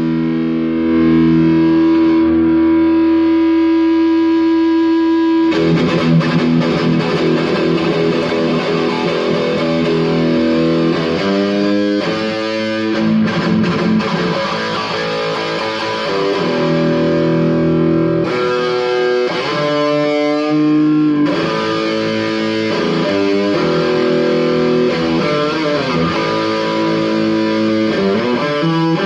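Overdriven electric guitar through a Mesa Boogie Mark V 35-watt 1x12 combo amp. It opens with one long held note. About five seconds in, brighter lead phrases begin, with long held notes and string bends that sustain smoothly into feedback.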